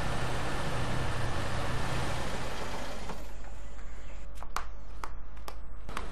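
Small Suzuki hatchback's engine running and its tyres rolling on a dirt driveway as it drives slowly in. About three seconds in this gives way to a quieter background with several sharp clicks.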